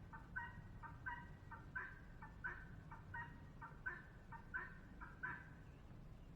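Faint domestic fowl calling in a steady series of short paired notes, about one pair every three-quarters of a second, stopping about five seconds in.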